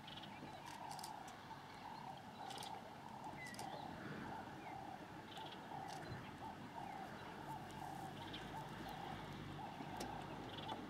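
Faint animal calls, short and quickly repeated at about two or three a second, with a few sharp high ticks among them.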